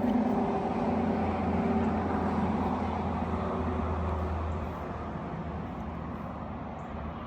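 A distant engine droning steadily with a low hum, fading somewhat about five seconds in.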